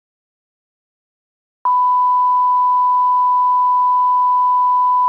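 Silence, then about one and a half seconds in a steady electronic beep of a single pitch starts abruptly and holds without a break, like a test tone.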